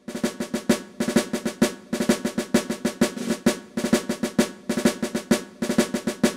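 Intro music: a snare drum beating a rhythmic cadence with quick rolls, over a steady held low chord.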